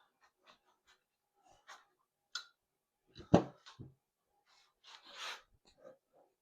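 Scattered clicks and clunks of tools and metal parts as the main bearing girdle is worked off a Honda K24 engine block, with a heavier knock about three seconds in.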